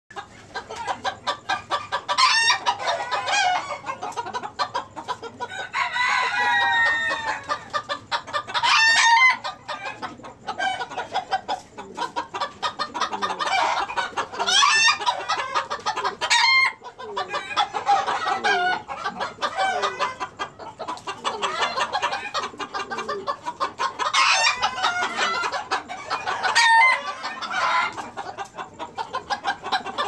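Golden Sebright bantam chickens clucking and calling without pause, with louder sharp calls every few seconds. A rooster crows.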